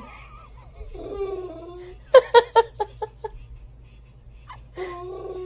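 A dog's drawn-out whining moans, with a short run of a person's laughter about two seconds in, the loudest sound.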